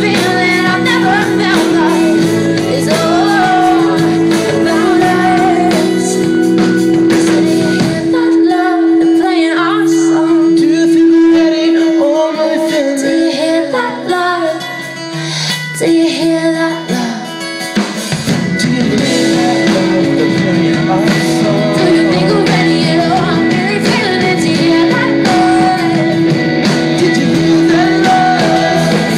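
Live pop-rock band playing in a large hall: electric guitars, drums and singing over a sustained held note. About eight seconds in, the bass and drums drop out for roughly ten seconds, leaving lighter guitar and voice, and then the full band comes back in.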